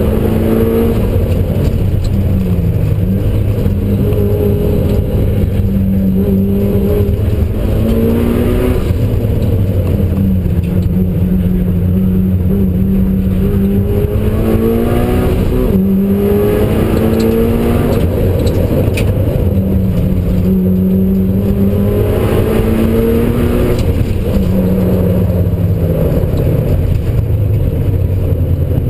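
Mitsubishi Lancer Evolution IX's turbocharged 2.0-litre four-cylinder engine driven hard, heard from inside the cabin: the engine note climbs and drops again and again through gear changes and lifts, over a constant low rumble.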